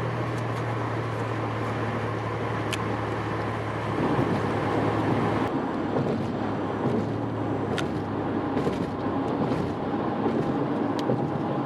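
Steady outdoor vehicle noise with a low hum, which changes character about halfway through, with a few faint clicks.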